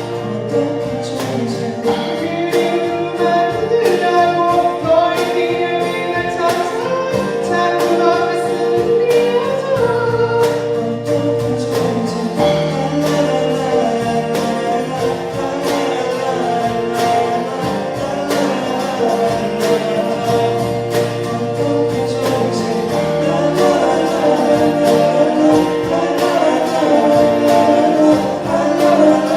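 A pop ballad played live by a small band, with singing over acoustic guitar, piano and keyboard.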